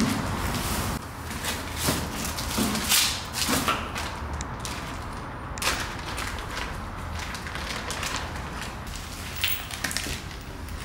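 Plastic packaging rustling and parts being handled in a cardboard box, with scattered irregular clicks and light knocks.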